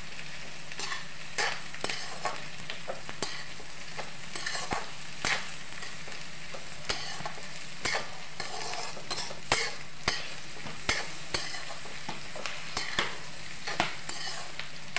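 Sliced vegetables stir-frying in hot oil in a metal kadhai, with a steady sizzle. A metal spatula stirs and scrapes them, clinking irregularly against the pan.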